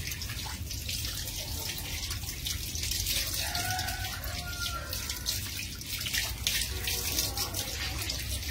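Water running from a tap and splashing onto a wet concrete floor as a puppy is scrubbed under it by hand: a steady splashing hiss.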